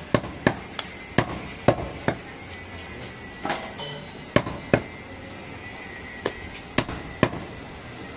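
Heavy butcher's cleaver chopping goat meat on a wooden log chopping block: about a dozen sharp, irregularly spaced chops, some in quick pairs.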